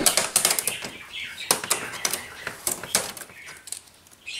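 Quick plastic clicks and rattles from hands handling the inside of an Epson XP-4100 printer while removing its packing. The clatter is loudest right at the start and thins out and quietens near the end.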